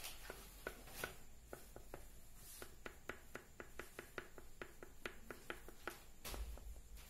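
White oil pastel being worked on paper in quick short strokes: a faint, steady run of scratchy ticks, about three to four a second.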